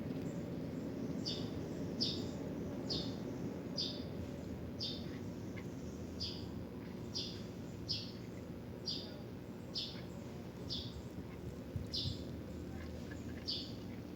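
Engine running steadily with a low, even rumble. A short high chirp repeats about once a second over it.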